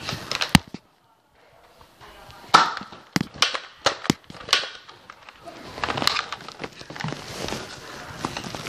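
A string of sharp clicks and knocks with rustling handling noise. The sound drops out almost completely for about half a second near the start.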